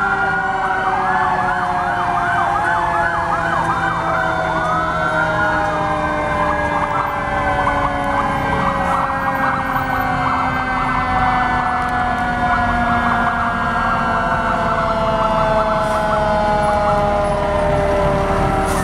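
Sirens on several passing fire trucks sounding together: rapid rising-and-falling electronic siren sweeps over a long steady tone that slowly falls in pitch, with the trucks' engines rumbling underneath.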